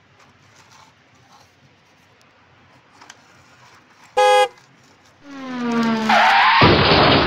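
Car sound effects: about four seconds in, a short car-horn toot; a second later an engine revving up, rising in pitch and swelling into a loud rush near the end.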